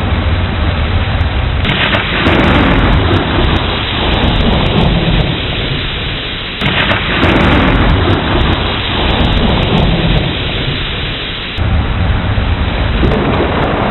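Steady heavy rain with rolling thunder. Three times, about every five seconds, the sound surges suddenly and then dies away over a few seconds.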